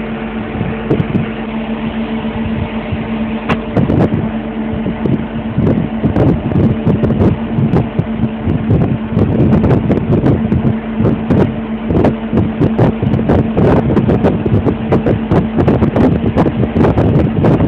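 A heavy vehicle's engine drones steadily, heard from inside its cab. Frequent rattles and knocks come on top of it, growing thicker and louder from about four seconds in, as the cab jolts over rough ground.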